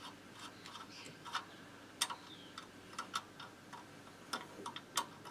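Ratchet wrench clicking as a nut on the Motobécane moped's engine mounting axle is loosened: sharp clicks at an uneven pace, about two a second.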